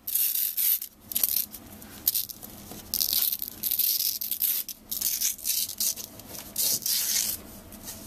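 1-inch double-sided hook-and-loop (Velcro) strap being handled and pulled across a table, making scratchy rubbing noises in irregular bursts, the longest stretch about three to five seconds in.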